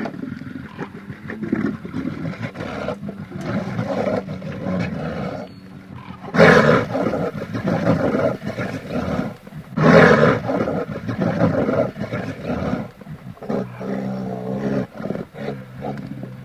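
Polar bear growling and roaring, with two loud roars about six and ten seconds in and a lower, drawn-out call near the end.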